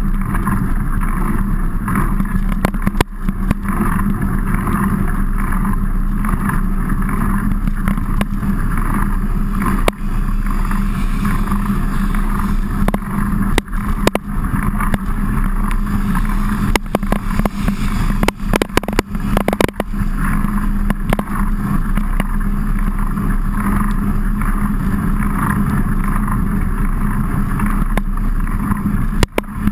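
Mountain bike riding noise picked up by a camera mounted on the bike: a steady loud rumble of wind and road vibration, with scattered sharp knocks.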